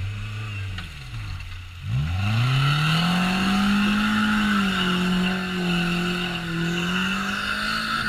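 Quad bike (ATV) engine revving under throttle. The revs drop off about two seconds in, then climb quickly and hold high, easing slightly and picking up again near the end.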